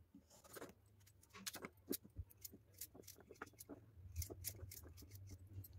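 Knife dicing a peeled raw potato over a china plate: faint, irregular small clicks and taps as the blade cuts and pieces drop onto the plate.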